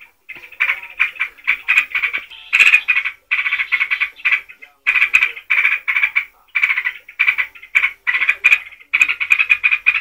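Yellow-vented bulbul (trucuk) singing in the rapid 'ngeropel' style: quick runs of notes in short phrases, one after another with only brief gaps.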